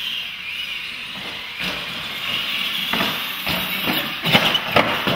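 R/C monster trucks running on a concrete floor: a wavering whine of their electric motors and gears, with a run of loud clattering knocks between about three and five seconds in.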